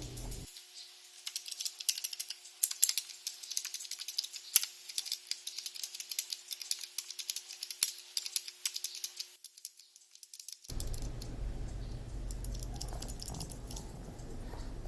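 Mechanical keyboard switches clicking rapidly and repeatedly as keys are pressed, working the sprayed butane cleaner through the switches. The clicking stops about two-thirds of the way in, leaving a low hum.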